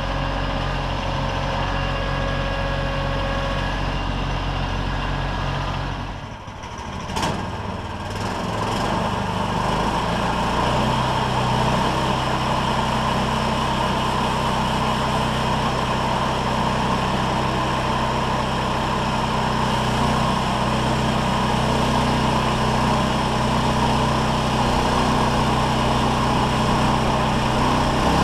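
An engine running steadily. About six seconds in it drops away briefly and a click is heard, then it settles into a louder, rougher steady run.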